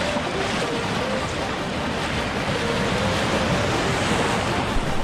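Sea surf washing onto the beach: a steady hiss of breaking waves.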